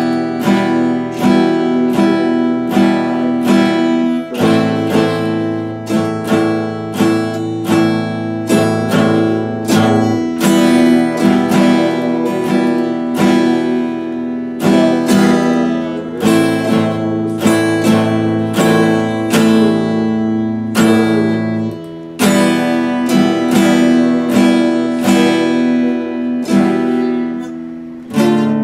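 Epiphone acoustic guitar strummed in a steady rhythm, about two strokes a second, moving through a chord progression.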